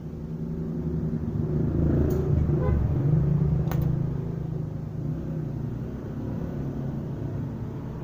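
Motor scooters passing by, their engine noise swelling to its loudest about two to four seconds in and then easing off, with two short sharp clicks in the middle.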